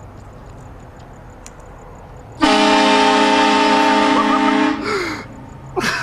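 Car-mounted air train horn sounding a loud chord of several steady tones for about two seconds. It starts suddenly a couple of seconds in and sags in pitch as it cuts off. A short loud burst of sound comes near the end.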